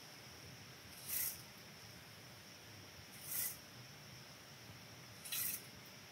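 A man's breathing close to the microphone: three hissy breaths about two seconds apart, over a faint steady high whine.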